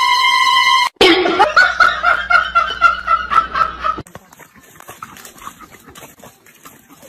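A steady held tone cuts off about a second in. Then a person laughs in quick pulses for about three seconds, and after a cut only faint outdoor background with small crackles remains.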